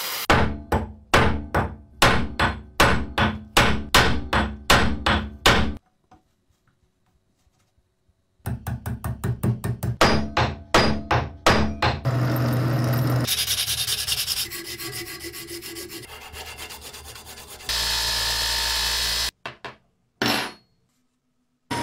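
Rhythmic scraping strokes, about three a second, in two runs with a short silence between them, followed by several seconds of steady machine noise.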